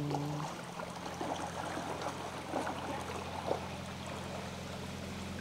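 A passing boat's engine gives a steady low hum, with water trickling. A few small clicks and splashes come in the first three and a half seconds.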